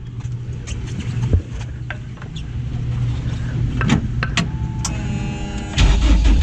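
A few knocks and clicks as the driver gets into the Honda-engined drift truck, over a steady low hum. Near the end the ignition comes on with a brief electric buzz, then the starter cranks the engine in a rapid, rhythmic churn.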